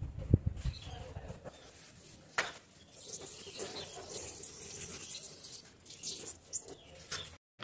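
Household cleaning noises: a few low knocks near the start and a sharp click, then a soft steady hiss like water or wiping.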